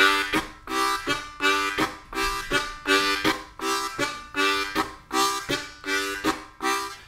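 Harmonica playing low three-hole chords (holes 1, 2 and 3) in a steady chugging rhythm of short, evenly spaced pulses, alternating draw and blow chords. The chords are cut up by 'nuka-tuka' tongue articulation to imitate a steam train.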